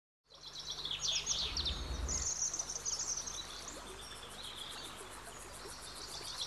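Small birds chirping and twittering in quick, busy calls over a faint outdoor hiss. A low rumble underneath stops a little after two seconds in.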